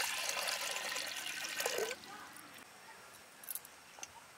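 Water poured in a steady stream into an empty black clay cooking pot, splashing on its bottom for about two seconds and then stopping. A couple of faint knocks follow near the end.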